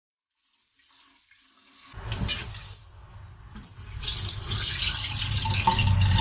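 Water splashing in a stainless steel sink while rice is rinsed: hands swish the grains in a rice cooker pot under a running tap, then the cloudy starchy rinse water is poured out of the pot into the sink, the pouring growing louder from about four seconds in.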